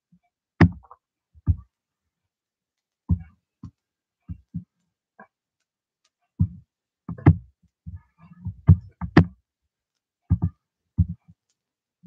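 Irregular dull knocks and thumps, about a dozen, spaced unevenly, with a denser run of them about seven to nine seconds in.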